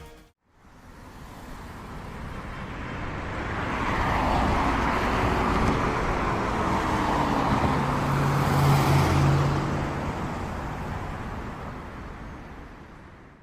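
Road traffic noise, cars going by, swelling up after a short gap and fading away near the end, with a low engine hum at its loudest.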